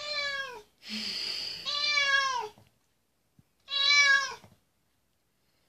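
An agitated orange tabby cat meowing three times, each a drawn-out call that falls in pitch at the end, the second one starting with a breathy, raspy sound.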